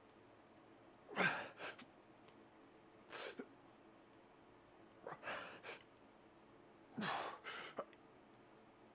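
A man breathing hard through a set of incline barbell bench presses: a forceful breath out with each rep, four times at about two-second intervals, each followed by a short quick breath.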